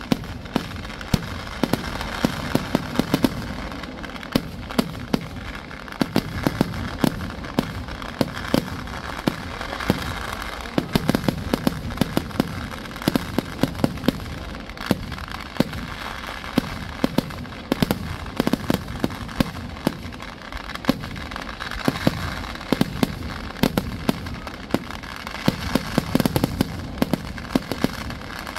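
Kerala temple-festival fireworks (vedikettu) going off in a continuous barrage: a rapid, uneven string of sharp firecracker bangs and shell bursts over a steady crackling din.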